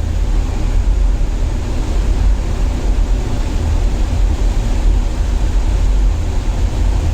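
Wind buffeting the microphone on a cruise ship's open deck at sea: a loud, steady low rumble with sea and ship noise under it.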